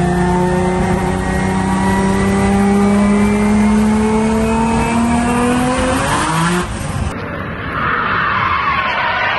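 Race car's engine pulling hard at full throttle in a high gear, its pitch climbing slowly and steadily for about six seconds. After an abrupt cut about seven seconds in, a harsh rushing noise follows.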